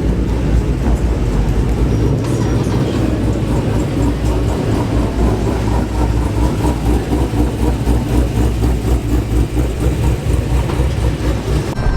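Car engine and exhaust rumbling steadily at low speed, with a deep, uneven burble.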